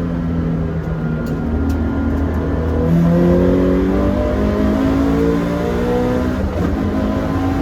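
Toyota 86's flat-four engine pulling hard under acceleration, its pitch climbing steadily, with a sharp drop at a gear change about three seconds in and another about six and a half seconds in.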